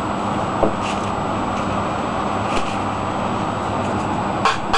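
A steady rushing noise with a faint low hum, broken by a few light taps about half a second in, at about one second, around two and a half seconds, and just before the end.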